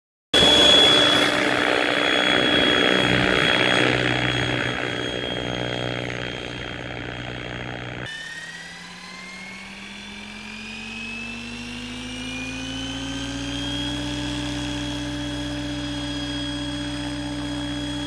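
Electric RC helicopter (Mikado Logo 600 on a 10-cell LiPo) loud at first. Then its motor and gear whine rise steadily in pitch for about six seconds as the rotor spools up on the ground, and hold level once head speed is reached.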